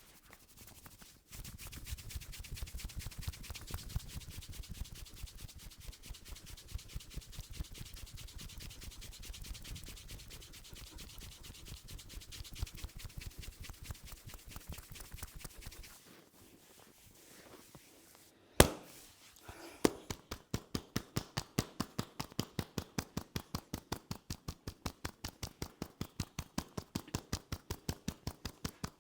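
Head massage by hand: fast rubbing strokes on the scalp for about fifteen seconds, then a short lull and a single loud sharp crack, followed by steady rhythmic tapping on the head at about four strikes a second.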